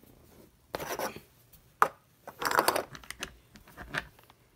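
Knocking and clattering of small hard objects being handled and moved about, with a sharp click about two seconds in and a denser clatter just after it.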